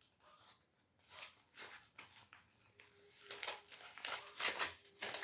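Paper envelope being torn open and rustled by hand, a run of short ripping and crinkling noises that comes faster and louder towards the end.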